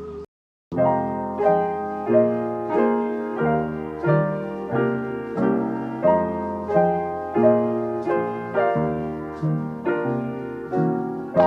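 Background piano music: a steady, even pattern of chords, each struck and fading, after a brief gap of silence about half a second in.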